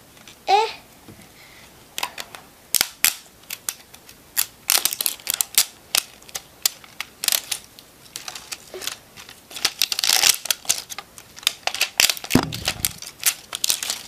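LOL Surprise toy wrapping being torn open and crinkled by hand: irregular sharp crackles and snaps, thickest around ten seconds in.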